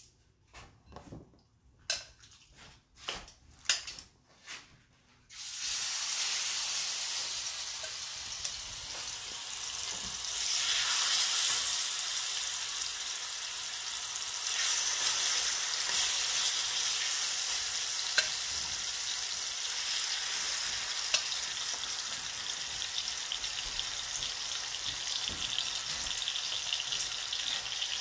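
Seasoned chicken thighs sizzling in hot oil in a stainless steel skillet, being seared to a golden colour. A few light clicks and knocks come first, then the sizzle starts suddenly about five seconds in as the meat goes into the pan and holds steady.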